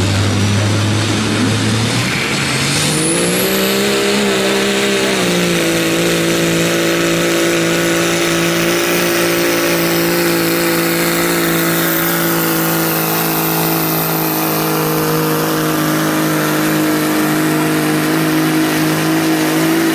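Dodge Ram diesel pickup engine in the 2.6 (turbo-limited) diesel class under full load pulling a weight-transfer sled. It is running lower at the line, climbs in pitch about two seconds in as the truck launches, then holds a steady high-rpm note as it drags the sled down the track.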